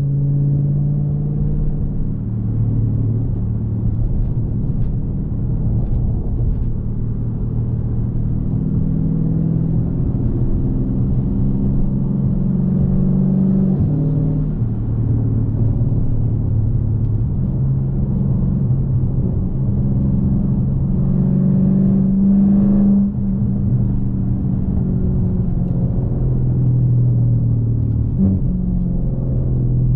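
2020 Dodge Challenger Scat Pack's 392 HEMI V8 engine running under way, its note climbing and stepping down again several times as the car speeds up and shifts. The note drops off suddenly about 23 seconds in.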